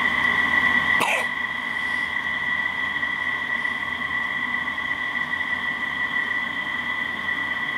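A steady high-pitched whine holding one pitch, with a short falling sweep about a second in.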